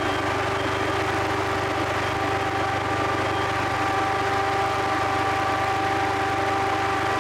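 Fire engine running steadily at the scene, most likely powering its pump: an unbroken engine drone with a constant whine over it.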